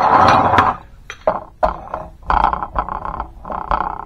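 A steel hand tool clinking and scraping against a steel hydraulic cylinder's head gland. A noisy rush comes first, then a run of short metallic strokes.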